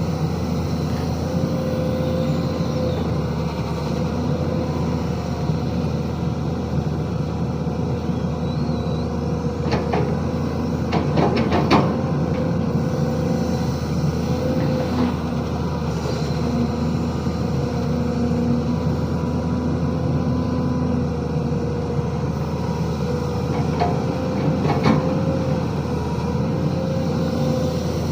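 Excavator's diesel engine running steadily with a constant whine over it, and a quick series of knocks about ten to twelve seconds in, with a few more near the end.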